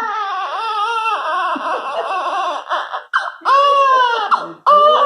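A baby crying in long, drawn-out wails, with short breaks for breath about three seconds in and again near the end.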